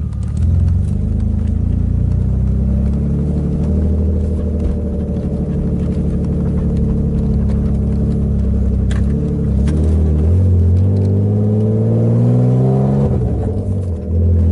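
BMW E36 325is straight-six heard from inside the cabin with the windows up, driven gently: the engine holds a steady note, then rises in pitch under light acceleration, dips briefly for a gear change near the end and pulls up again.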